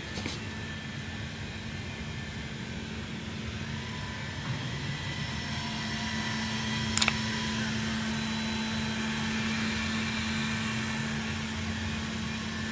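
Steady mechanical hum and hiss, like a fan or appliance running, with a sharp click right at the start and another about seven seconds in.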